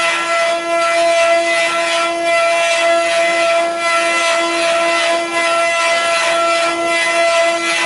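Multi-head CNC wood carving machine running: its router spindles give a steady high whine while the bits cut into rotating wooden spindle blanks, with a rasp of cutting wood that swells and eases repeatedly.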